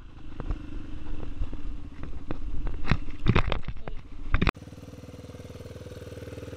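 Small dirt bike engine running while being ridden, with many sharp knocks and rattles over it. About four and a half seconds in, it cuts abruptly to the engine idling steadily.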